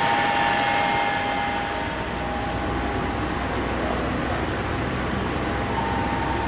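Steady high turbine whine from a Boeing 737-700 standing at the gate, over a continuous rushing hiss. The whine fades about a second and a half in and comes back near the end.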